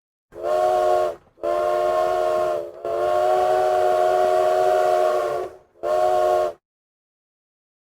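Train whistle sounding four blasts, each a chord of several steady tones with a breathy hiss over them: a short one, a longer one, a long one of about three seconds, then a short one.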